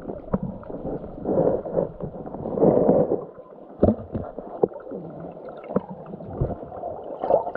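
Creek water heard through a submerged camera: a muffled, gurgling wash of the current, swelling twice in the first few seconds, with several sharp knocks, such as stones or the camera housing being bumped underwater.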